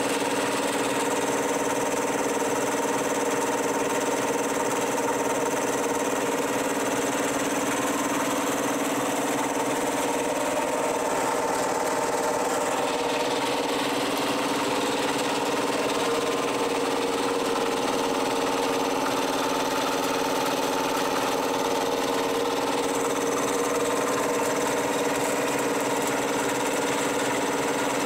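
Electric air compressor with a three-cylinder piston pump running steadily, giving an even mechanical hum that holds its pitch.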